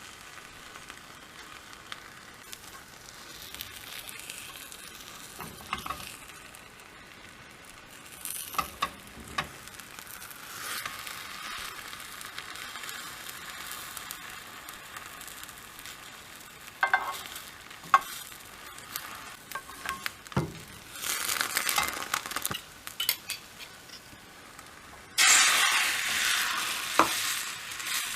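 Beaten egg frying in a tamagoyaki pan: a sizzle that swells and fades, with a few sharp taps and scrapes of a utensil against the pan, and a much louder burst of sizzling near the end.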